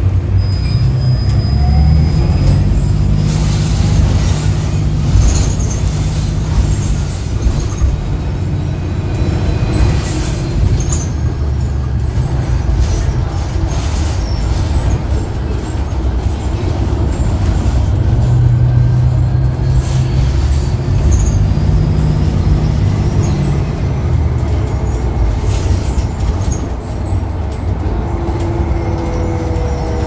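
Cabin sound of a New Flyer XDE60 articulated diesel-electric hybrid bus under way: a steady low drone from the drive and road, with scattered rattles. Near the end there is a rising whine from the BAE hybrid drive as the bus speeds up.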